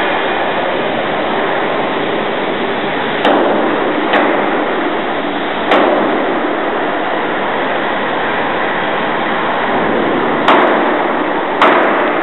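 Steady workshop noise of a steel fabrication shop, broken by five sharp bangs at irregular intervals: two close together a few seconds in, one near the middle, and two more near the end.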